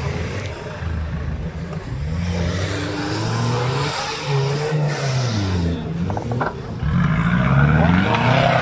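Off-road vehicle engine revving up and down again and again, its pitch rising and falling, with a short lull about six seconds in and the loudest revving near the end.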